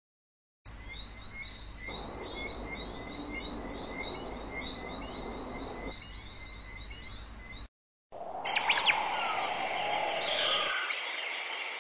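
Stock outdoor ambience with small birds chirping over steady background noise: first quick, evenly repeated high chirps, then after a brief silent break a second recording with different calls.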